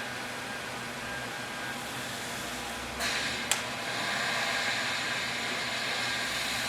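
Steady machine hum and hiss, with handling noise from about three seconds in and a single sharp click half a second later as registration pins are worked into the holes of a steel rule cutting die.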